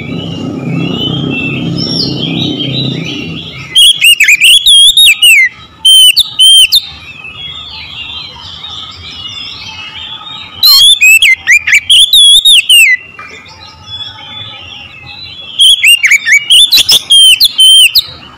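Oriental magpie-robin singing loudly in four bursts of fast, sweeping whistled phrases, with softer twittering in between.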